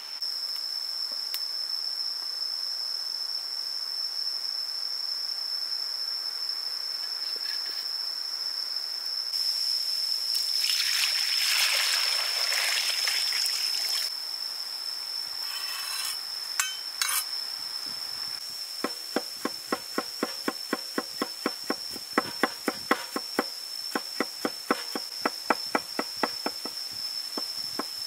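A steady, high-pitched insect drone runs underneath throughout, with a louder rushing hiss for a few seconds midway. In the last third, a cleaver chops fresh turmeric root on a wooden board in quick, even knocks, several a second, the loudest sounds here.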